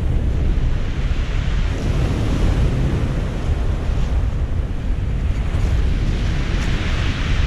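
Ocean surf breaking and washing up a pebble beach, with wind buffeting the microphone in a steady low rumble. A wash of surf swells louder near the end.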